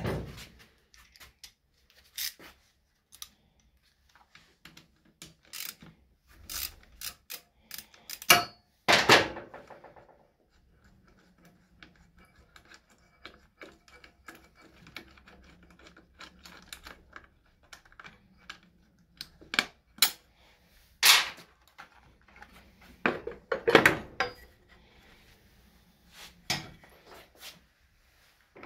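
Hand tools and metal scooter engine parts clinking and knocking as a side cover is taken off and parts are handled: irregular clicks with a few louder clanks, the loudest about eight to nine seconds in, ringing briefly.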